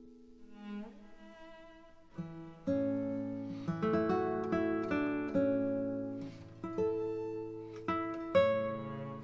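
Background music played on a plucked string instrument: separate notes that ring and fade, sparse at first and fuller from about three seconds in.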